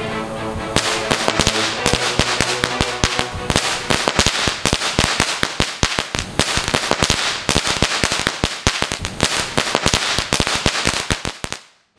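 A Magic Whip cord firecracker burning along its length, crackling with dense rapid pops from about a second in, then cutting off just before the end.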